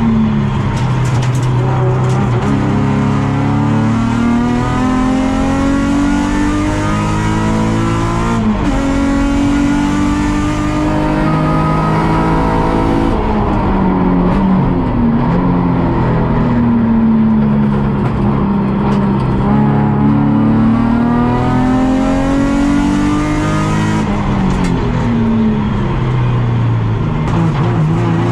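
Nissan 350Z's 3.5-litre V6 engine under race load, heard onboard, revving up and down through the gears. The pitch climbs repeatedly, drops sharply at each gear change or braking point, then climbs again.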